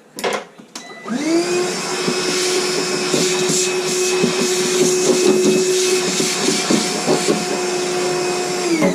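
Handheld electric power tool spinning up about a second in, running at a steady high speed with scratchy contact noise as it works on the door's steel, then winding down at the end.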